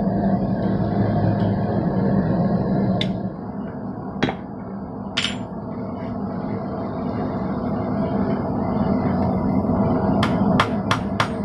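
Forging hammer striking hot steel on an anvil: a few single metallic clinks in the first half, then a quick run of about five blows near the end. A steady hum runs underneath and drops in level about 3 s in.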